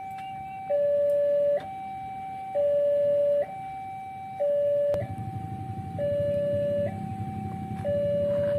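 Battery tram's electronic warning horn giving the S35 departure signal as a two-tone hi-lo siren, alternating between a higher and a lower note about once a second. A low rumble joins about halfway through as the tram gets moving.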